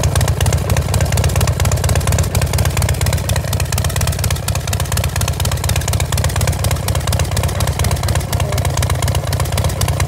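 A 2013 Harley-Davidson Dyna Wide Glide's air-cooled V-twin idling steadily, a low, even rumble.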